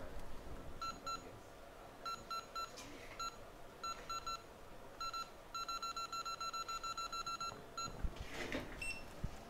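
Electronic beeps from a hot air rework station's control buttons: short beeps singly and in small groups, then a rapid run of about six beeps a second for two seconds as the temperature setting is stepped. A brief rustle near the end.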